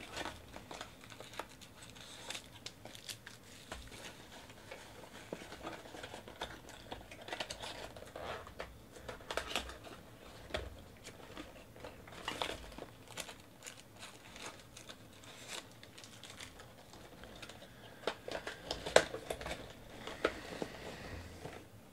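Trading-card pack wrappers being torn open and crinkled by hand, a steady run of small crackles and rustles with one sharp snap near the end.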